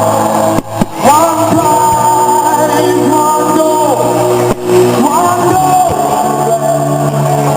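Rock song with a male singer holding long notes over a steady backing.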